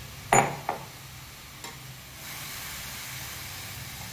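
Grated radish sizzling gently in a little ghee in a nonstick frying pan; the hiss gets a little louder about two seconds in. About a third of a second in there is a sharp knock, the loudest sound, with a lighter knock just after.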